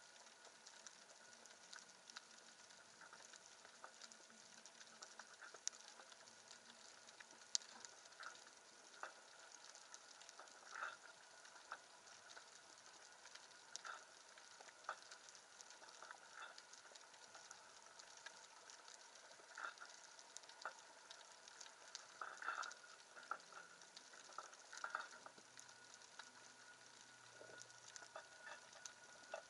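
Faint underwater ambience heard through a submerged camera: a steady fine crackle with scattered sharper clicks.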